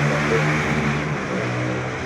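A motor vehicle's engine running with a steady low hum that eases slightly in level about halfway through.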